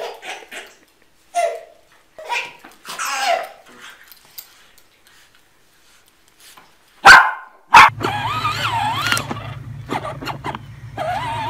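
A dog making short bursts of vocal sounds while tugging at cloth. Two sharp knocks follow, then the steady low hum of a child's electric ride-on toy quad bike, with a high voice rising and falling over it.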